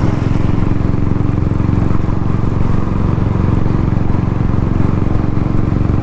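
Royal Enfield Thunderbird 350X's single-cylinder engine running steadily while the motorcycle cruises.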